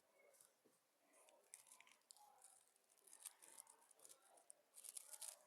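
Gan 15 Maglev 3x3 speed cube being turned fast during a speedsolve: a quick, uneven run of light plastic clicks and rattles that grows denser and louder near the end.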